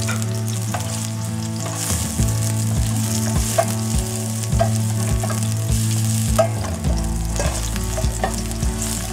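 Chopped garlic sizzling in hot olive oil in a stainless steel frying pan, stirred with a spoon that scrapes and taps against the pan two or three times a second. A steady low hum runs underneath.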